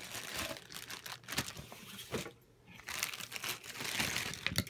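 Rustling, crinkling handling noise in two stretches with a short pause about halfway, and a few sharp clicks near the end.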